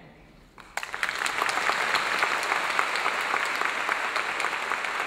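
Large audience applauding: many hands clapping. It breaks out abruptly under a second in and holds at a steady level.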